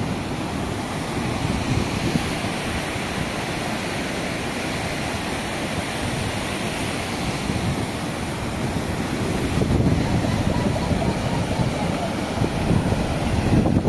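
Muddy floodwater rushing steadily down a rocky gully, growing louder about two-thirds of the way in.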